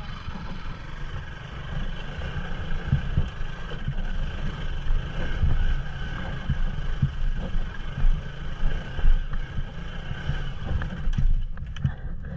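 Bajaj Pulsar NS200's single-cylinder engine pulling the motorcycle up a steep, stony dirt track. It throbs unevenly as the throttle works against the climb, with scattered knocks as the bike jolts over rocks.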